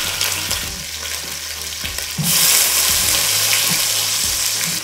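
Pieces of oxtail frying in hot oil in a pot: a steady sizzle that turns louder and hissier about two seconds in.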